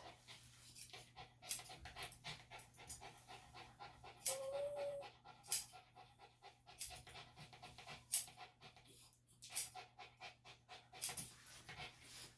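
A senior Bichon–Shih Tzu mix dog panting rapidly, with a sharp click roughly every second and a half.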